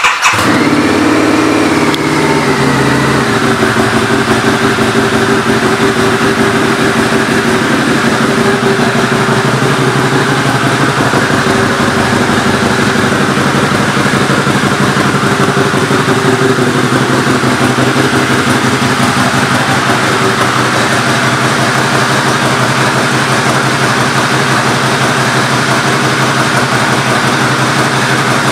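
2006 Harley-Davidson V-Rod's liquid-cooled V-twin engine idling through Vance & Hines pipes, just after starting. It settles over the first few seconds into a steady, even idle.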